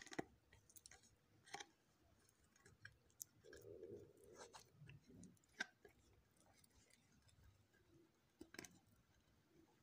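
Near silence with a few faint scattered clicks and some soft rubbing: fingers smearing butter inside fluted metal mini-cake tins.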